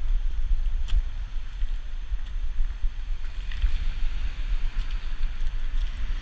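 Low, fluttering rumble of wind and movement on a camera microphone strapped to a walking dog's back, with a few faint clicks.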